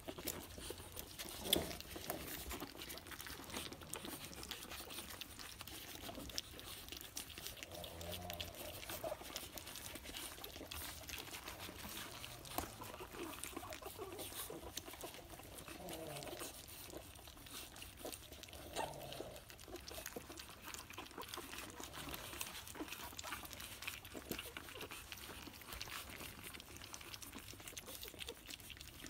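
Pug puppies lapping and smacking at soft, wet gruel: a steady run of small wet clicks, with a few brief puppy squeaks.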